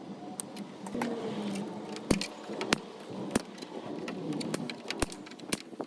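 Plastic welding gun repair under way on a motorbike fairing: a steady low hum with several sharp clicks and metallic clinks.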